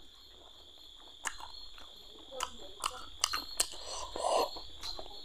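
Close-up chewing of fried fish: irregular crunches and wet mouth clicks, sparse at first and coming thicker from about two seconds in.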